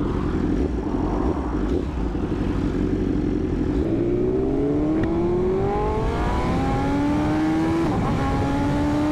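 BMW S1000RR inline-four engine under a steady rush of riding noise, then accelerating from about four seconds in, its pitch climbing and dropping back at two upshifts.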